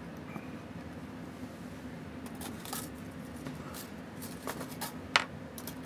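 Small, irregular metallic clicks and light scrapes of watchmaker's hand tools handling a Seiko 6138 chronograph movement clamped in a movement holder. The loudest single click comes a little after five seconds in. A steady low hum runs underneath.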